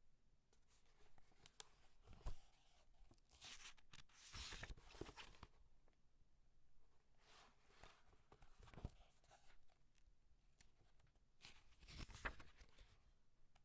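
Paper pages being turned, several separate turns a few seconds apart, each a brief crisp rustle of paper.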